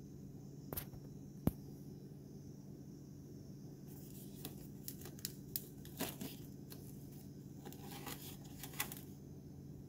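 Hands handling a styrofoam plate of frozen dog treats: two light clicks, then from about four seconds in a run of short scrapes and taps as fingers move the treats over the foam. A steady low hum runs underneath.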